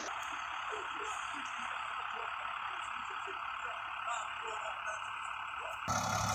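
Steady outdoor background noise with faint scattered short chirps. Just before the end it cuts sharply to a louder vehicle engine idling.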